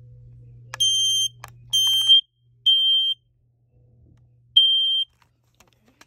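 Battery-powered i9040 smoke alarm sounding loud, high-pitched piezo beeps of about half a second each: three in a row, a pause, then a fourth.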